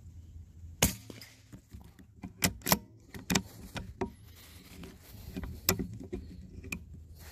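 .22lr rimfire rifle shot about a second in, followed by a run of sharp metallic clicks and knocks from working the bolt of the CZ 452 bolt-action rifle and handling it.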